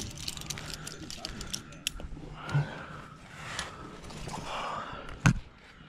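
Metal climbing gear (carabiners and protection on a harness rack) clinking and jingling as the climber moves, in many light clicks during the first two seconds, with one sharp knock about five seconds in.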